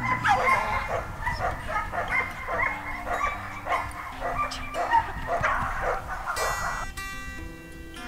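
Several Siberian huskies yipping and whining in quick, overlapping cries, excited and playful. Background music runs underneath and takes over near the end, when the dogs' cries stop.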